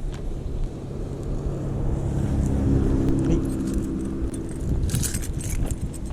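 Wind rumbling on the microphone in a snowstorm, with a steady vehicle engine hum in the middle. A jangle of metal clicks, like keys or lockout tools, comes near the end.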